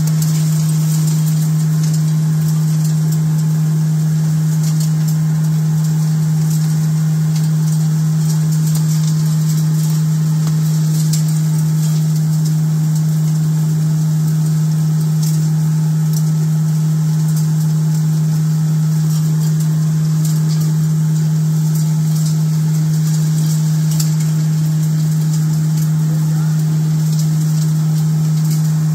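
Turmeric grinding plant running: a loud, unchanging machine hum as the screw feeder in the hopper turns through dried turmeric fingers, with faint scattered clicks over it.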